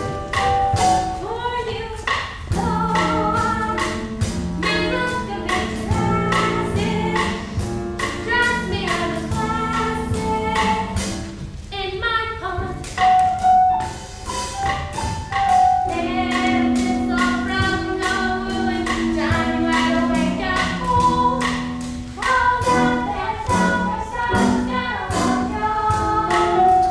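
A group of voices singing a musical theatre number over instrumental accompaniment with a steady beat.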